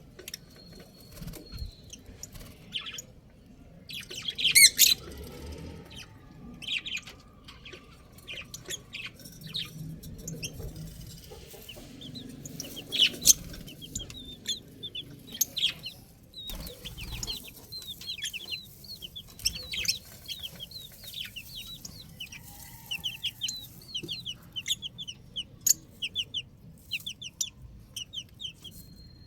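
Baby chicks peeping: many short, high chirps, often falling in pitch, in quick irregular runs. The loudest chirps come about four and thirteen seconds in.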